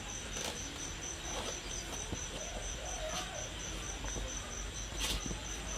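A cricket chirping steadily in the background, a high pulsing trill of about five pulses a second. A faint short squeak comes near the middle, with a few light clicks.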